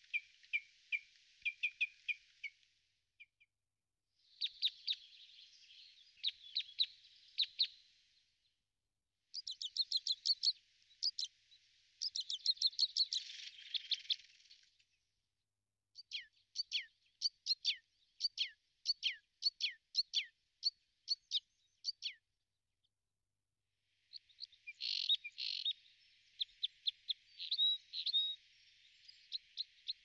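Small songbirds chirping: quick series of short, high chirps and trills over a faint hiss, in several separate stretches that start and stop abruptly with brief silences between them.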